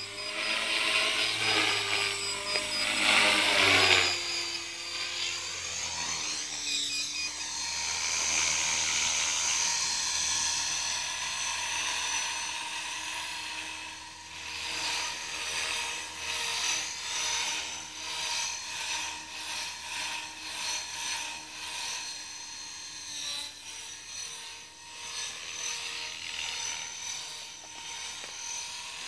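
Electric T-Rex 450 clone RC helicopter flying: the high whine of its motor and spinning rotor blades, rising and falling in pitch as it manoeuvres. It is loudest in the first few seconds.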